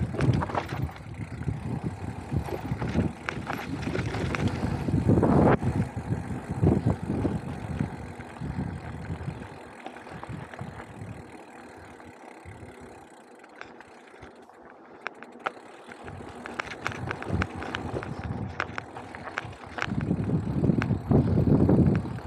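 Mountain bike riding over a dry dirt trail: tyres rumbling on dirt and loose stones, with frequent clicks and rattles from the bike over the bumps. It goes quieter and smoother partway through, then gets louder and rougher again near the end.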